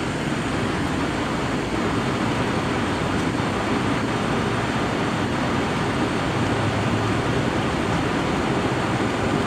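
Flight-deck noise of a Boeing 767-300ER accelerating down the runway at takeoff thrust: a steady rush with a low rumble.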